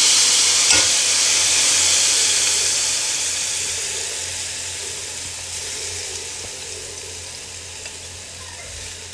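Wet basmati rice dropped into hot oil and cumin in a large pot, sizzling with a loud hiss that slowly dies down. A single light knock about a second in.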